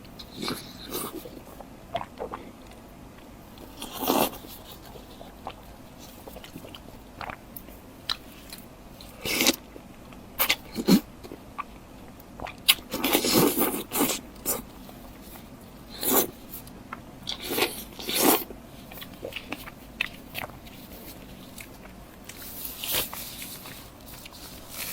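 Close-miked eating: a series of separate bites and crunches with chewing between them, with a longer crunching stretch about halfway through.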